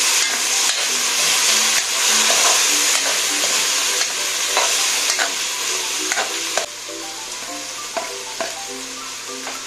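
Sautéing filling sizzling in butter in a pan while a spatula stirs it, with scattered scrapes and knocks against the pan. The sizzle drops noticeably about two-thirds of the way through.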